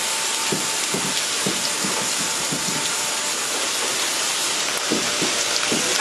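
Steady hiss of water spraying at an automatic train-washing plant.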